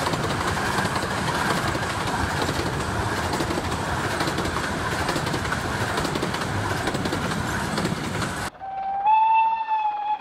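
Passenger coaches of a 15-inch-gauge miniature train rolling past, a steady rumble of wheels on rail. It cuts off sharply about eight and a half seconds in, and a locomotive whistle sounds, one held tone rising slightly in pitch.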